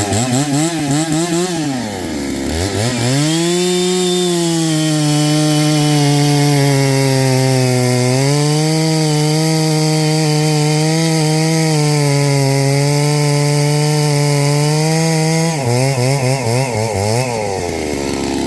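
Two-stroke gasoline chainsaw engine revved up and down in quick blips, then held at high revs for about twelve seconds, then blipped rapidly again before settling.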